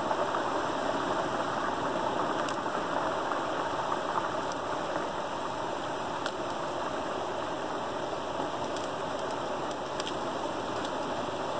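Creek water rushing steadily through an opening in a beaver dam, falling in a small waterfall into the stream below, with a few faint clicks.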